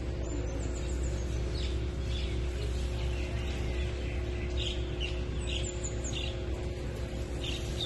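Small birds chirping in short high calls and a few quick falling trills, over a steady low hum.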